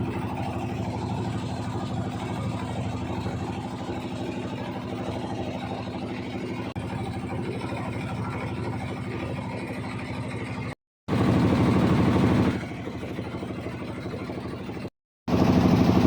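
An engine running steadily at an even speed; the sound drops out suddenly twice near the end and returns louder.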